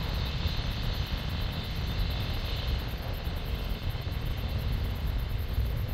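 Airbus A340-300's four CFM56 jet engines running, a steady low rumble with a hiss above it.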